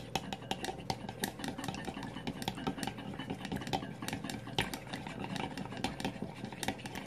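Egg wash being whisked with a utensil in a ceramic bowl: quick, irregular clicks of the utensil against the bowl, several a second, over the swish of the beaten egg.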